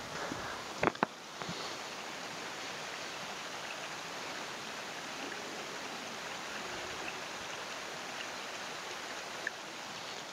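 Small creek flowing steadily, with two sharp clicks about a second in.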